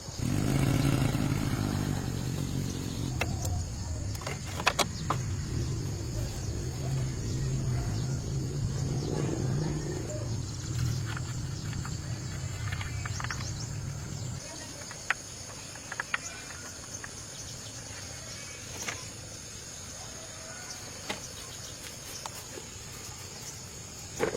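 A motor runs steadily for about fourteen seconds, then cuts off suddenly, leaving scattered clicks and knocks.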